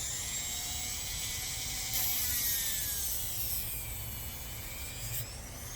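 Dremel rotary tool with a sanding pad running at high speed with a steady whine, grinding down a dog's toenail. About two seconds in the pitch sags as the pad bears on the nail and a scratchy grinding noise rises, with a brief scratch again near the end.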